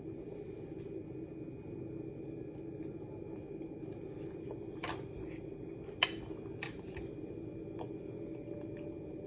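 A few short, sharp clinks and clicks of kitchenware over a steady low hum, the loudest a single sharp clink just past halfway.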